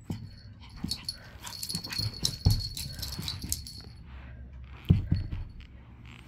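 Chihuahua puppy making small playful vocal noises while romping, with a light jingling, likely from her harness tag, and a couple of soft thumps, the loudest about five seconds in.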